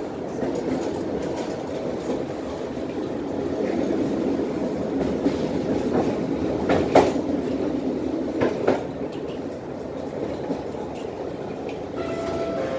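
Tatra T6B5 tram running along its track, heard inside the passenger cabin: a steady rolling rumble of wheels on rails, with two sharp clicks about midway. Near the end a faint steady whine comes in.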